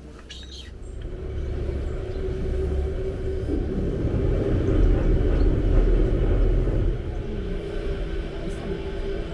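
Electric tour boat running, its motor giving a steady whine over a low rumble that swells to a peak about six seconds in, then eases.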